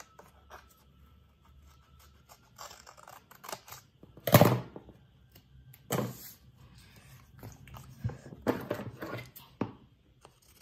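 Scissors snipping through craft paper, with paper being handled and rustled. The louder rustles come several times, the biggest a little past four seconds in.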